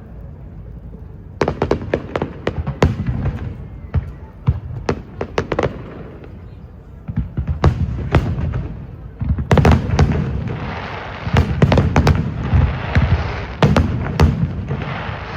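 Aerial fireworks bursting: a rapid, irregular series of loud bangs and pops that grows denser from about ten seconds in, the shells overlapping into a continuous crackle.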